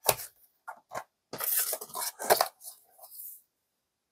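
Metal Steelbook disc case handled on a table: a string of sharp clicks and clacks with a short scrape in between.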